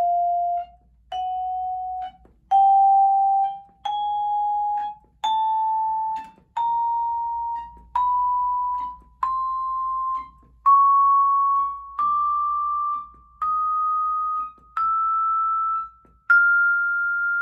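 1960s Deagan Vibraharp's aluminium bars struck one at a time with a yarn mallet, climbing a chromatic scale note by note through about an octave, a new note roughly every second and a half. Each note rings for about a second and is then cut off short, except the last, which rings on near the end.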